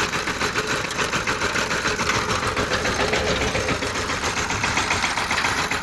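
Tractor engine running steadily with a fast, even beat.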